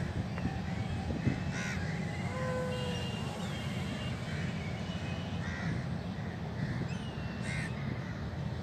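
Crows cawing, a few separate calls spread over several seconds, over a steady low rumble.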